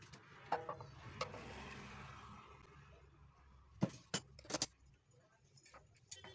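Metal hand tools clinking against the cut-off saw's metal parts: a few light clicks, then three sharp metallic clinks close together about four seconds in, over a faint low hum.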